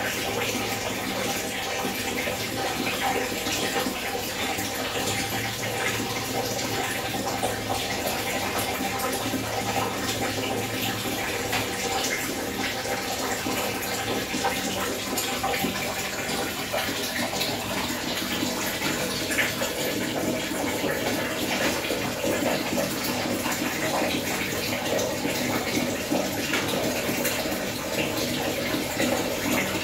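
A steady rushing noise with a low steady hum underneath.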